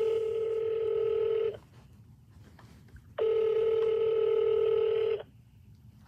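Ringback tone from a smartphone's loudspeaker on speakerphone: two steady rings, each about two seconds long, with a pause of about a second and a half between them. The called line is ringing and has not yet been answered.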